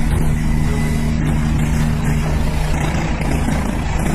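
Eurocopter EC145 helicopter hovering close by, its main rotor and turbine engines running loudly and steadily, with a low steady hum under a fast rotor beat.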